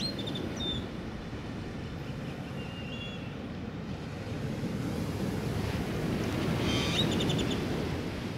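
Small waves breaking and washing up a sandy beach, the surf swelling louder about five seconds in and peaking near seven seconds. A few short high chirps come through, with a quick run of them about seven seconds in.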